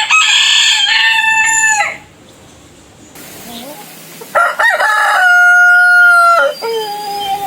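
Rooster crowing twice: a crow of about two seconds at the start, then, after a pause, a longer crow with a long held middle note that drops to a lower note at the end.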